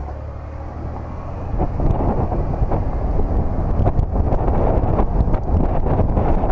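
Wind buffeting the microphone of a camera mounted on the outside of a moving 2004 Chevrolet Monte Carlo, over a low engine and road rumble. The buffeting grows much louder about a second and a half in.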